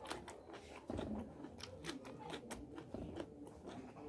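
Close-miked chewing and biting of fried fish, rice and cucumber, with many irregular crisp, wet mouth clicks and a couple of heavier low bites.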